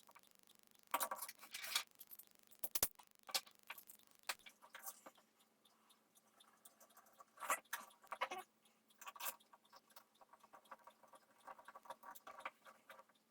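3D-printed plastic parts clicking and clattering as they are handled and fitted together, in irregular bursts of light knocks and rattles.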